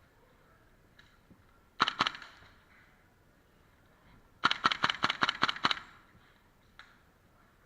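Airsoft gun shots: a quick double shot about two seconds in, then a rapid burst of about nine shots in just over a second.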